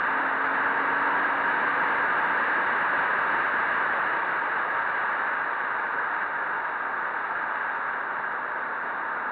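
Steady rushing wind and road noise on an action camera riding at speed on a KTM 400 enduro motorcycle over gravel, which covers the engine; a faint engine hum shows through only in the first two seconds.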